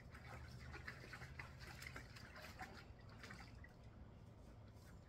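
Faint splashing and dribbling of water in a plastic paddling pool as dogs step about in it and climb in and out.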